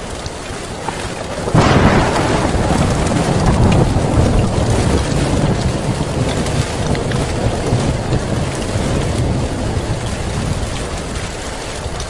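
Heavy rain falling steadily on a tin roof. About a second and a half in, a loud clap of thunder breaks in and rolls on as a long low rumble that slowly fades.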